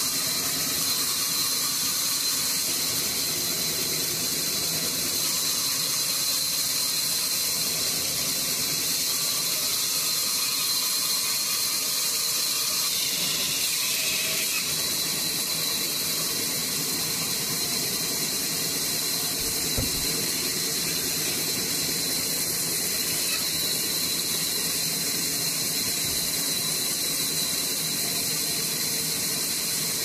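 Vertical band saw running, its blade cutting through a log: a steady high-pitched hiss.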